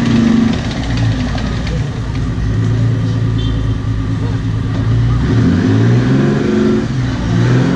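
Tracked armoured vehicle's engine running as it drives and turns, revving up about five seconds in and then holding a steady low drone.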